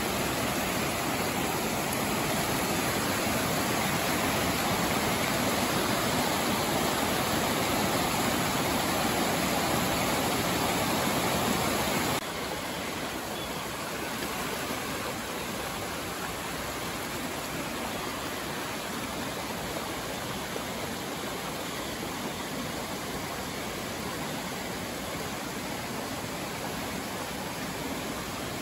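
Creek water rushing over a rock cascade: a steady noise of whitewater. About twelve seconds in it drops abruptly to a quieter, steady flow of water over shallow rock ledges.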